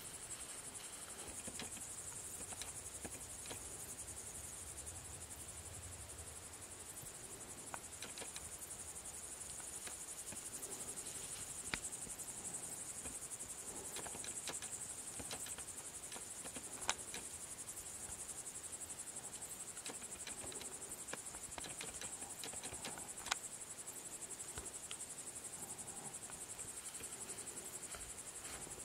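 Steady high-pitched chorus of crickets chirping in a grassy meadow, with a few sharp clicks scattered through it, the loudest about twelve, seventeen and twenty-three seconds in.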